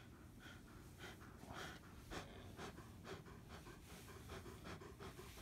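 Faint, quick, irregular huffing breaths and snorts from a Rottweiler as it mouths and play-bites a sleeved arm.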